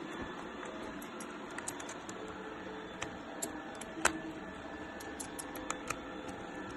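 Precision screwdriver clicking and scraping in the screw holes of a hollow plastic toy dinosaur as its Phillips screws are undone: scattered light ticks, with one louder click about four seconds in, over a steady faint hiss.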